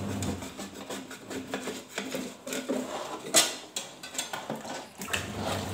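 Putty knife scraping wet, soaked sticker paper off a glass pane in short strokes, giving a run of small scrapes and clicks, with one louder sharp sound about three and a half seconds in.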